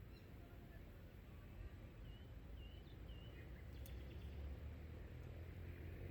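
Faint outdoor ambience: a low steady rumble with a few short, high bird chirps about two to three seconds in and a single sharp click shortly after.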